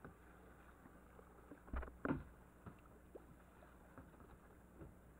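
Plastic kayaks being paddled on a river: faint paddle strokes and moving water, with two louder, sharper strokes close together about two seconds in.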